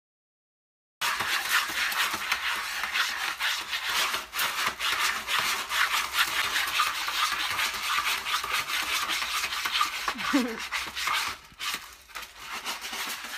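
A cat digging and scratching in a plastic litter tray: granular litter scraping and rattling in quick rasping strokes, starting about a second in.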